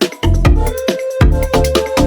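Background music: an electronic dance track with a steady beat and sustained synth notes.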